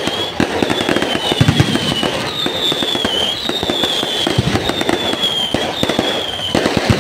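Fireworks display: a dense, continuous crackle of bangs and pops, with a string of high whistles from whistling shells, each falling slightly in pitch, following one after another.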